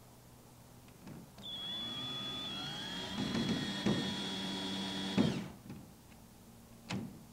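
Power drill driving a screw into a wooden door frame to fasten a barrel bolt. The motor spins up with a rising whine about a second in, runs steadily under load for about four seconds, and stops suddenly. A single sharp click follows near the end.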